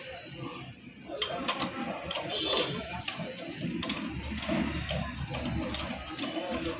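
Irregular light clicks and clinks, several a second, of hand tools and engine parts being handled.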